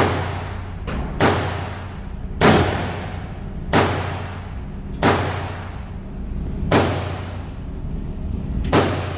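Seven gunshots at an indoor shooting range, spaced about one to two seconds apart. Each crack is followed by an echoing tail.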